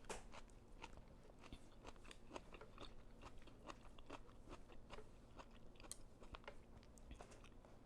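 A person chewing food close to the microphone, faint, with many small wet mouth clicks and smacks.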